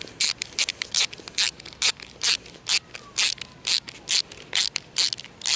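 Short scraping strokes, about two to three a second, from a hand tool turning the screws of an aluminium clamp-type garden hose mender to tighten it onto the hose.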